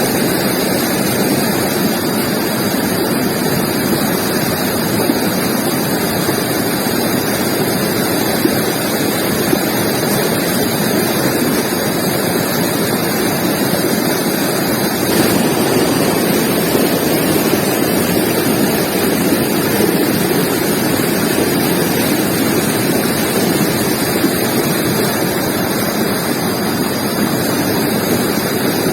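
Forest river flowing over rocks: a loud, steady rush of water.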